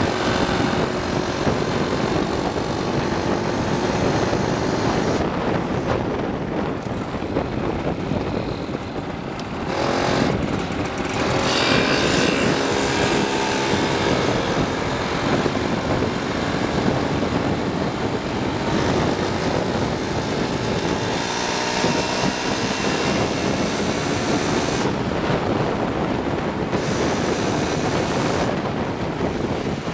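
Small two-stroke moped engine running under way, heard from on board, its pitch rising and falling with the throttle several times. Wind rushes over the microphone.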